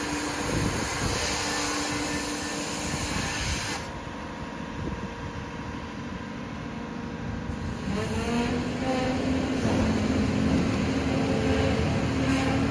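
Caterpillar MH3024 wheeled material handler's diesel engine running under hydraulic load as the upper structure slews and the boom moves. The engine note rises and grows louder about eight seconds in.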